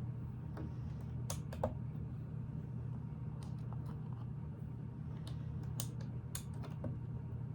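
Small plastic Lego pieces clicking and tapping as they are handled and pressed together, in scattered irregular clicks, over a steady low hum.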